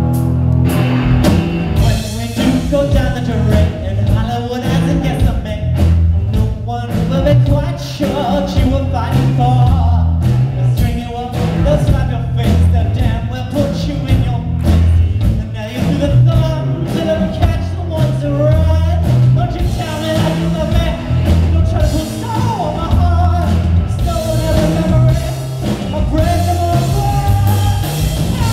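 Live rock band playing: electric guitars, bass and drum kit on a steady beat, with a man singing over them.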